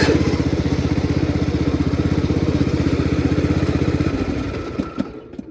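Modified riding lawn mower's engine running hard with a fast, even firing beat, then dying away about four seconds in, with a couple of clicks near the end.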